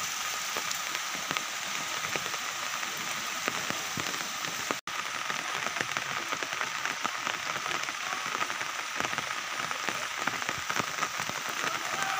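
Steady rain falling, a dense, irregular patter of drops over an even hiss. It cuts out for an instant about five seconds in.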